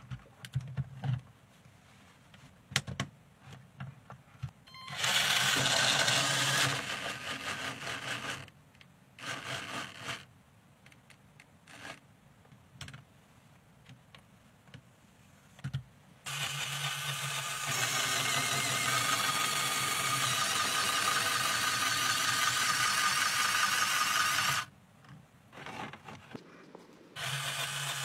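Small electric motors of a LEGO Technic car whirring through plastic gears in several runs, the longest about eight seconds in the second half. Between the runs come quiet gaps with scattered clicks of plastic parts being handled.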